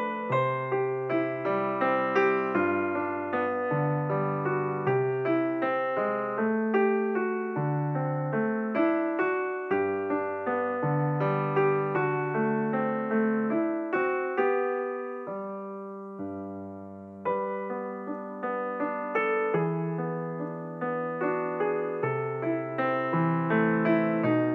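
Background solo piano music: a slow, gentle melody of held notes over a bass line, with a brief softening about two-thirds of the way through.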